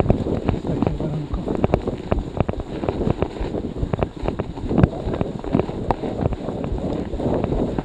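Snowstorm wind buffeting the microphone of a Garmin VIRB Ultra 30 action camera on a moving bicycle's handlebars, with many small irregular clicks and knocks.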